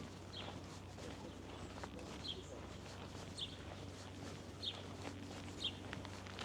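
A bird repeating a short, high, falling chirp about once a second, over a steady low hum.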